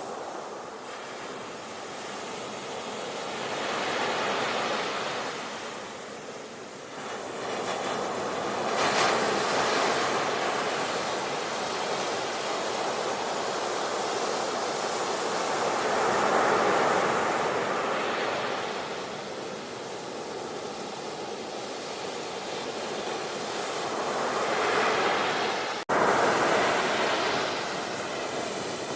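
Sea waves breaking and washing up the shore, the surf swelling and fading every several seconds. A sudden brief gap about 26 seconds in, after which the surf comes back louder.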